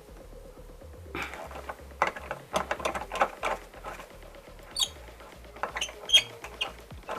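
Hand riv nut tool being worked: irregular clicks and knocks of metal, with a few short high squeaks.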